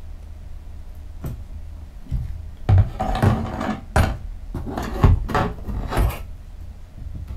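Handling noise from a cardboard model rocket body tube and parts being moved about on a work table: a run of knocks, rubs and scrapes from about three to six seconds in, over a steady low hum.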